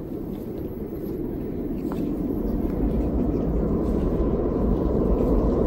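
Rumble of an O-Train Confederation Line light-rail train approaching through the tunnel, growing steadily louder, with a faint steady whine coming in over the last couple of seconds.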